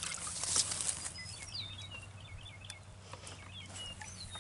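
A small songbird chirping: quick runs of short, high notes that slur downward, starting about a second in and repeating to the end. A few faint knocks near the start.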